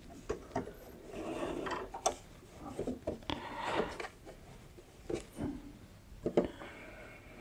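Pouch fabric being shifted and rubbed across a sewing machine's bed under the presser foot, with a few irregular small clicks and knocks in between; the machine is not stitching.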